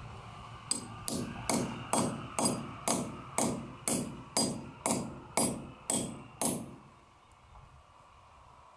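A steel hammer taps the head of a Power Bolt (Rawl 5-piece) expansion anchor about thirteen times, roughly two strikes a second, each with a bright metallic ring. This drives the anchor through the hanger into its drilled hole in hard concrete. The taps stop a little over two-thirds of the way through.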